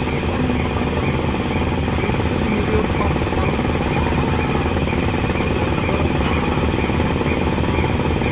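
Girder launcher machinery running with a steady, loud mechanical drone and hum, part of the machine's preparations for moving its leg.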